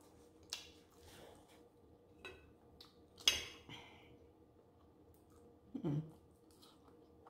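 Metal fork scraping and clinking against a ceramic plate while scooping macaroni and cheese, a few light clicks with the sharpest clink about three seconds in. A short low hum comes near six seconds as the forkful goes into the mouth.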